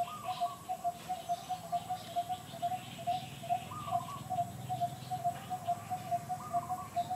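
Birds calling: a short single note repeated evenly about three times a second, with higher chirps and a short rising call every couple of seconds.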